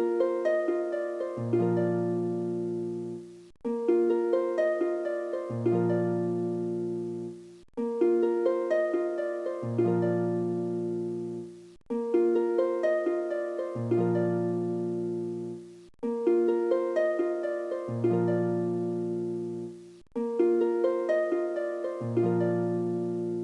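Background music: a gentle plucked-string melody over low bass notes, a phrase of about four seconds that loops again and again with a short break before each repeat.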